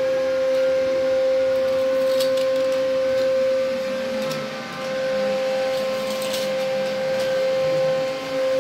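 A steady, mid-pitched machine hum with overtones, which drops out briefly about halfway through. Faint short scratches sound over it now and then.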